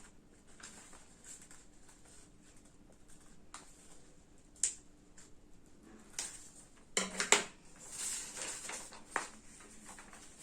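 Folded colour paper being handled: faint scattered rustles and clicks, with a busier patch of crinkling about seven seconds in.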